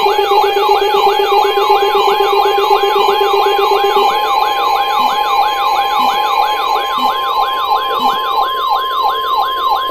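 Emergency alert tones: the steady 1050 Hz NOAA Weather Radio warning alarm tone under a siren-like sweep that rises quickly and repeats about three times a second. A lower pulsing tone also sounds until about four seconds in. The 1050 Hz alarm heralds a warning broadcast.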